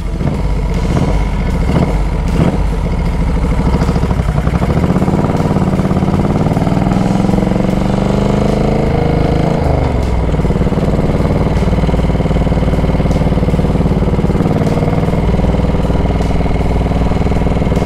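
1970s Moto Guzzi V-twin engine of a chopper under way. The revs climb for several seconds, drop sharply about ten seconds in, then hold steady at a cruise.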